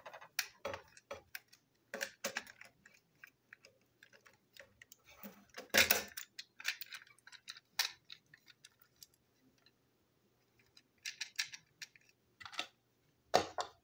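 Irregular small plastic clicks and taps from a toy train engine being handled and taken apart with a screwdriver, with a louder knock about six seconds in.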